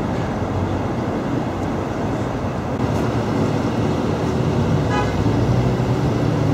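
Steady rumble of cars and traffic, with a short horn-like toot about five seconds in.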